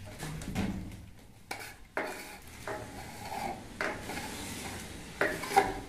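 Flat metal plastering trowel scraping and smoothing wet gypsum plaster onto a concrete beam in several short strokes, with a sharper knock near the end.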